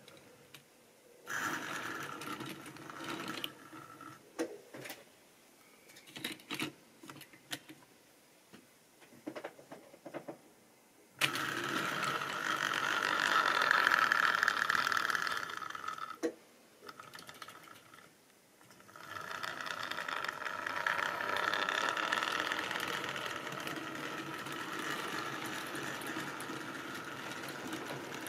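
Tri-ang model goods train running on its track, the wagons' wheels rattling and clicking over the rails. For the first ten seconds there are only scattered clicks and short rattles. About eleven seconds in a steady rattle starts suddenly, loudest a few seconds later, stops briefly around seventeen seconds, then carries on steadily.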